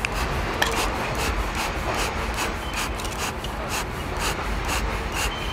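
Bee smoker bellows squeezed over and over, each squeeze a short puff of air, about two to three puffs a second.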